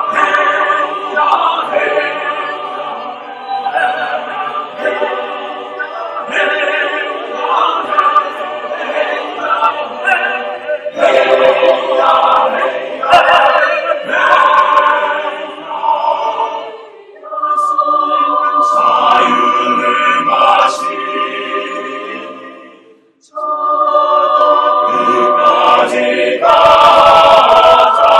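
Mixed choir of men's and women's voices singing in Korean, accompanied by a small string ensemble and piano. The singing breaks off for a brief pause about three-quarters of the way through, then comes back loud and full near the end.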